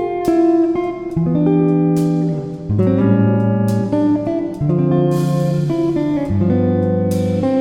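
Instrumental background music led by guitar: held chords over a bass line that changes about once a second, with a sharp strike every couple of seconds.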